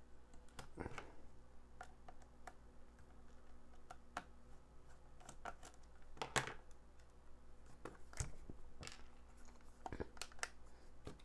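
A small screwdriver turning screws out of a plastic LED flashlight's housing, and the plastic case being handled. Scattered faint clicks and light knocks, the sharpest a little past the middle.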